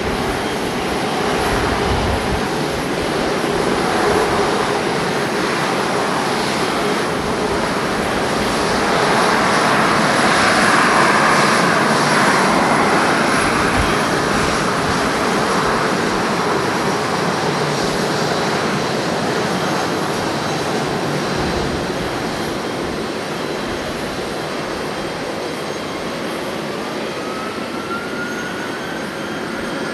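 Boeing 737-500's CFM56 jet engines running at taxi power as the airliner moves off. The steady rush grows louder about ten seconds in, then slowly fades as the aircraft taxis away. A faint rising whine comes in near the end.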